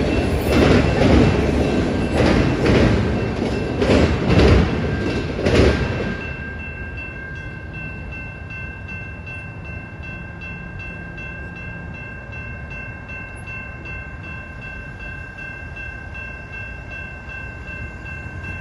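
Autorack freight cars roll past, their wheels clacking over the rail joints in pairs. About six seconds in the last car clears, and the grade-crossing warning bell is left ringing steadily.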